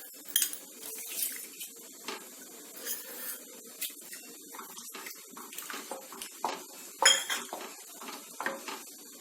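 A spoon clinking and scraping irregularly against a metal pressure cooker holding rice, dal and water, with light sloshing of the water, as salt is added and stirred in. The sharpest clinks come about half a second in and about seven seconds in.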